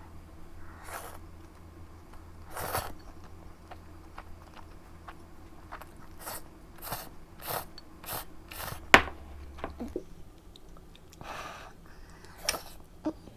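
A person eating close to the microphone: a run of short, irregular chewing and biting noises, with one sharp click about nine seconds in.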